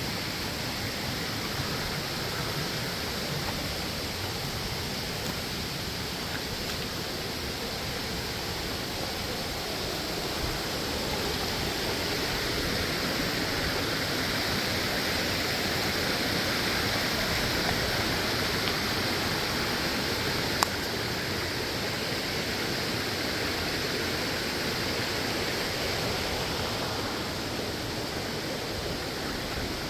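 Waterfall: falling water making a steady, even rush that swells slightly through the middle, with one brief click about two-thirds of the way through.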